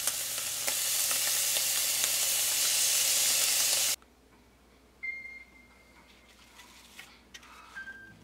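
Ground meat sizzling loudly in a frying pan, with a spatula scraping through it. The sizzle cuts off abruptly about four seconds in, leaving a quiet room with a couple of faint clicks.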